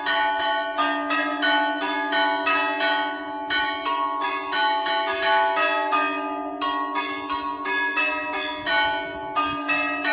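Dozens of Orthodox monastery church bells ringing together: smaller bells struck in a quick run of about four strokes a second over the steady hum of the larger bells, the run of strokes starting afresh twice.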